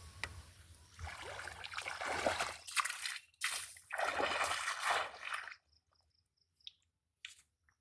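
Water sloshing and splashing in two rushes of a couple of seconds each, then dying away to a few faint drips and clicks.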